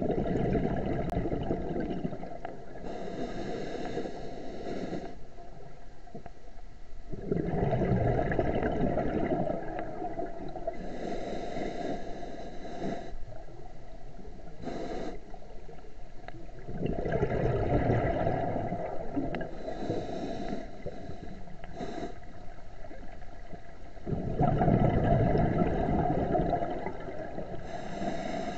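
A scuba diver breathing through a regulator underwater: bubbling exhalations, the loudest sound, come four times, each two to three seconds long, and shorter hissing inhalations fall between them, one breath about every seven to eight seconds.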